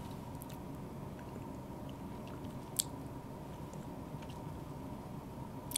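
A cat eating from a dish on the floor: soft chewing with small scattered clicks and crunches, and one sharper click near the middle, over a steady faint hum.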